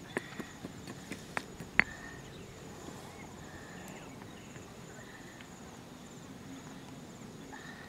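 Pestle knocking in a mortar, several strokes about two or three a second, the loudest just before two seconds in, after which the knocks stop. Insects chirp faintly in the background.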